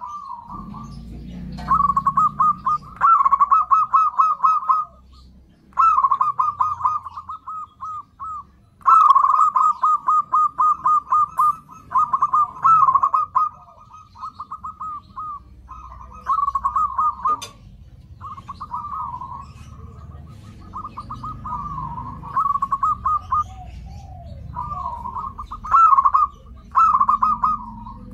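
Zebra doves (perkutut) singing: phrases of rapid staccato cooing notes, repeated one after another with short pauses between them.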